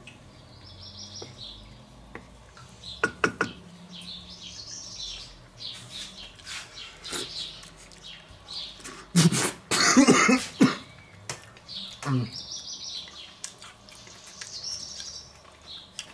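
A man coughs and sputters harshly for about a second and a half, after tasting hot sauce too eagerly. Birds chirp softly in the background throughout, and a few light clicks come about three seconds in.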